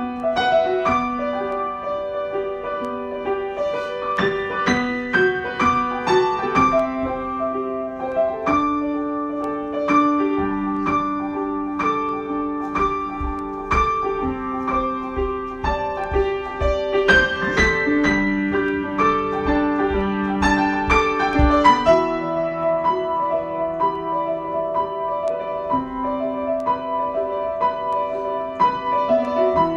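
Solo piano playing an improvised piece: melody notes over held chords that change every couple of seconds.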